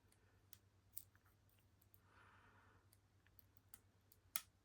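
Faint, scattered clicks of lock picks working inside a small Master Lock 9130 padlock, the loudest about four seconds in.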